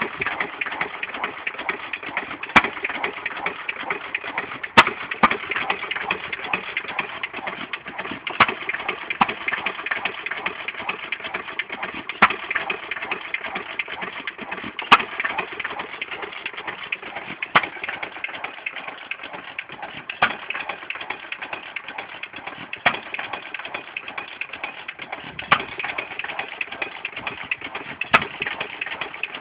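Amanco Hired Man 2 1/4 hp open-crank stationary engine running hit-and-miss. A sharp firing bang comes roughly every two to three seconds, over a steady rapid clatter of the valve gear and crank.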